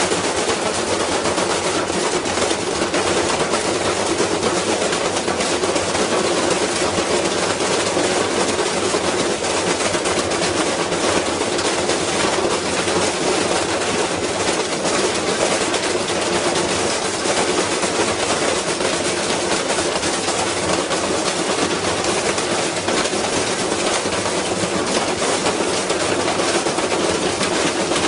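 Washing machine spinning hard with a heavy unbalanced load inside, shaking itself apart: a loud, unbroken, rapid clatter of banging and rattling.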